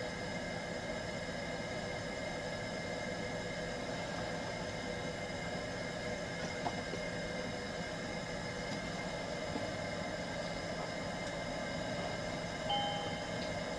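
Steady whir and electrical hum of an Airbus H145 cockpit on electrical power with its engines not yet started, with several steady whining tones held throughout. Near the end a short two-tone electronic beep sounds once.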